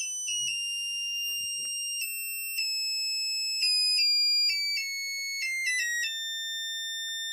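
Electronically driven coil whining at its drive frequency, a steady high tone that drops in small steps from about 3 kHz to about 1.8 kHz as the signal generator is tuned back toward the 1.7 kHz resonance frequency. Faint clicks come with the pitch steps.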